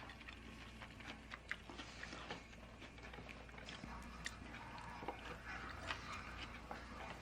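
Quiet eating sounds: soft chewing with scattered small clicks and taps.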